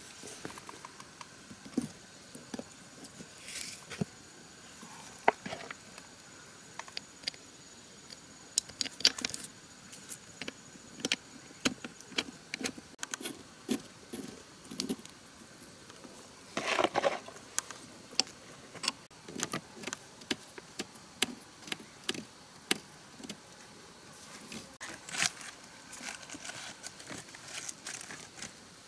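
Irregular light metallic clicks and clinks of small pump parts and tools being handled during work on a pressure-washer pump head, with a busier cluster a little past halfway.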